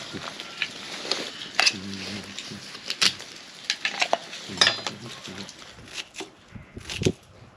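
Cookware and metal utensils being handled, clinking and knocking in a string of irregular sharp clatters.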